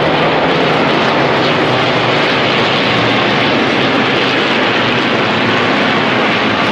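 Propeller aircraft engines running, a loud, steady drone.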